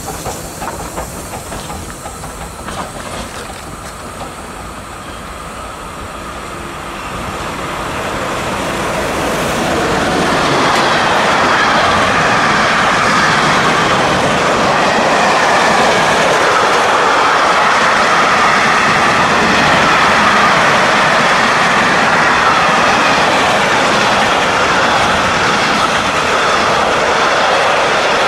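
Long freight train of covered wagons passing at speed, its wheels rolling and clicking over the rail joints. Quieter at first, it grows louder about eight seconds in as the wagons come alongside, then stays steady.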